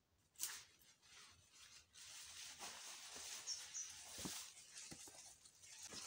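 Faint rustling and small snaps of garden plants being handled, with one sharper snap about half a second in and two quick high chirps about halfway through.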